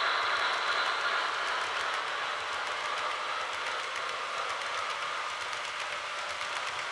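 N-gauge model train rolling around curved track: a steady running hiss of the coaches' wheels with light clicking at the rail joints, growing a little quieter during the first second or two as the cars pass.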